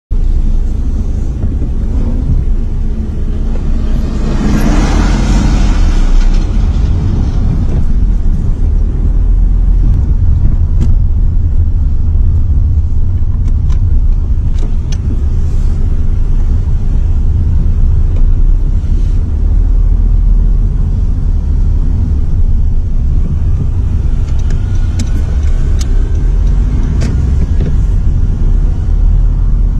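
A car driving along a town street, heard from inside its cabin as a steady low road and engine rumble. A louder rushing swell rises and fades about four to six seconds in.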